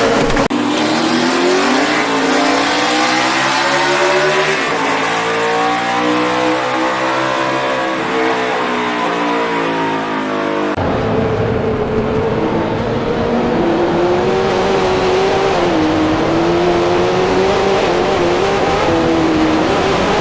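AI-generated race car engine sound, made to go with NASCAR race footage. First the engine note climbs and then falls in pitch over several seconds, like a car passing. About eleven seconds in it cuts to a steadier engine note that wavers slightly in pitch.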